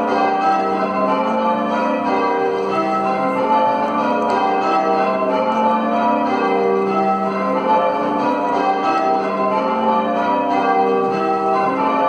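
Church bells rung full circle in change ringing: a ring of tower bells struck one after another in a continuous, even succession of overlapping tones, heard from the ringing chamber where the ropes are pulled.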